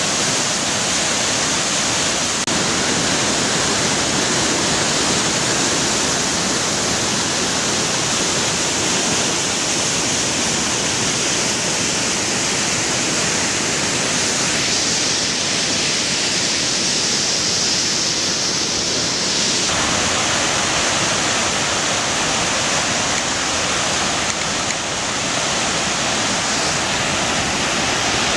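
Floodwater rushing over rapids in a normally dry desert river running in flood after heavy rain: a loud, steady roar of water that turns brighter and hissier for about five seconds midway.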